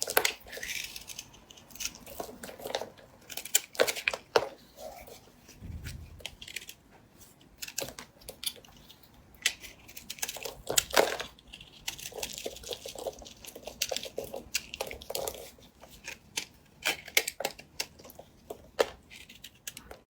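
A blade cutting and carving a bar of soap: an irregular run of sharp cuts and cracks, with short scraping stretches in between.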